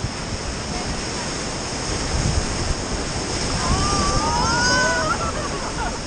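Whitewater river rapids rushing and splashing around an inflatable raft, with wind buffeting the microphone. Voices in the raft call out briefly about four seconds in.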